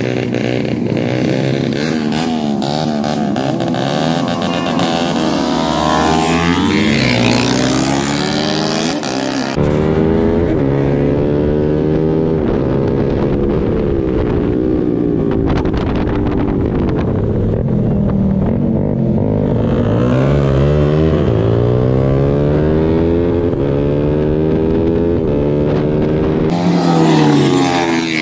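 Sport motorcycle engines accelerating hard, their pitch climbing and dropping back again and again as they shift up through the gears.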